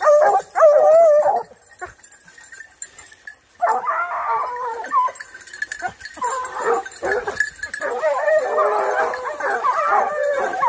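A pack of wire-haired hunting hounds baying in overlapping, wavering cries. The cries break off for about two seconds just after the start, then carry on almost without pause. The hounds are holding wild boar at bay in thick brambles.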